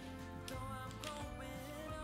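Background music, with a melody line that wavers in pitch coming in about half a second in.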